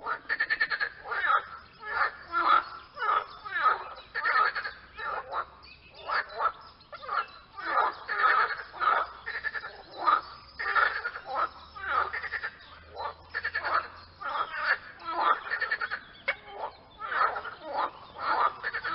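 Frogs calling: a dense run of short, repeated croaking calls, one to two a second and often overlapping, with no let-up.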